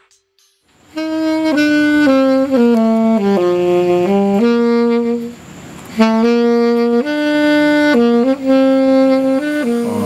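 Saxophone playing a slow solo melody of held notes, coming in about a second in, with a brief break around the middle.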